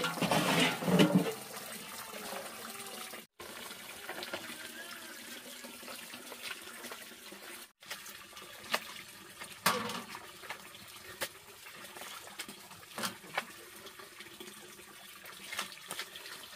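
Water running and splashing, loudest in the first second, with scattered light knocks. The sound drops out briefly twice.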